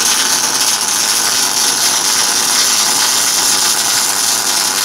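Electric arc welding: the arc crackling and sizzling in a steady, dense hiss as the weld is run.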